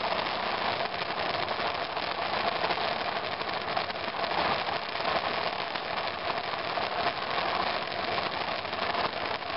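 2002 BMW F 650 GS Dakar's single-cylinder engine running while the motorcycle is ridden over a rough trail, a steady, noisy drone with no break.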